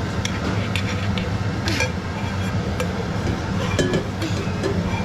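Scattered light clinks and taps of a utensil against a metal cooking pot as butter is put in, over a steady low hum.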